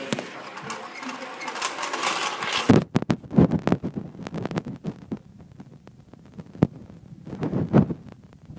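Mamod live-steam model locomotive running on its track: a steady hiss of steam for the first few seconds, then a run of light mechanical clicks and knocks, several a second.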